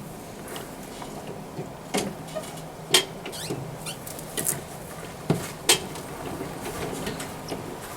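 Scattered sharp knocks and clatters over a faint steady background: one about two seconds in, the loudest about three seconds in, and a pair in quick succession around five and a half seconds.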